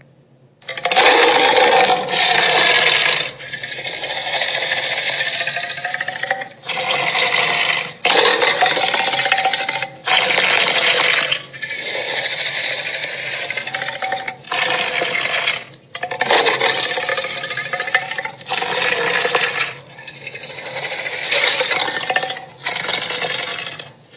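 Transformersaurus sound effects played one after another: about a dozen short electronic clips, each one to two seconds long, each stopping abruptly before a brief gap.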